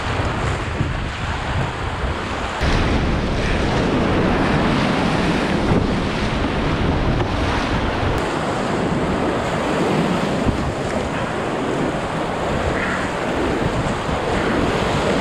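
Loud, steady rush of whitewater rapids crashing around a canoe, with wind buffeting the microphone.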